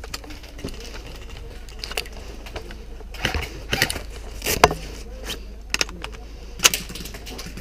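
Irregular knocks and clicks of an airsoft player's footsteps and gear while moving, over a steady low rumble.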